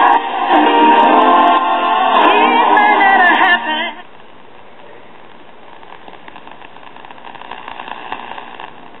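Music from an AM station playing through the 1946 Radio Craftsman Kitchenaire five-tube radio's speaker, thin and cut off in the highs, which stops abruptly about four seconds in and leaves a quieter steady static hiss as the tuning knob is turned off the station.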